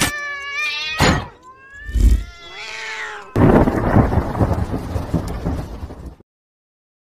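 Horror intro sound effects: a long, wailing, animal-like cry whose pitch bends, with a sharp hit about a second in, then a loud rolling thunder rumble from about three seconds in that cuts off suddenly shortly before the end.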